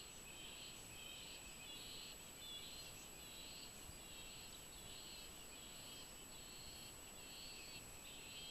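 Faint outdoor wildlife chirping: a high call repeated steadily about twice a second, over a thin steady high tone.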